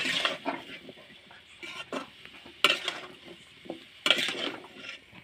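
A metal spatula stirring and scraping cauliflower and potatoes in a kadai, with sharp clanks against the pan at the start, a little past halfway and about four seconds in. A light sizzle of frying oil runs underneath.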